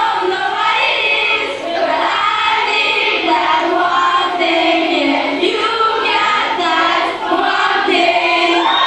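A crowd of young female fans singing a song together, many high voices at once.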